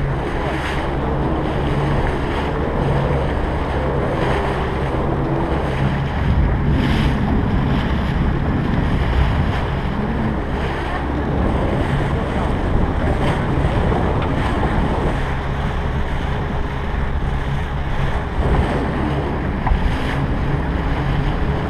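Outboard motor of a small fishing boat running steadily under way, a low hum under the rush of water along the hull and wake. Wind buffets the microphone throughout.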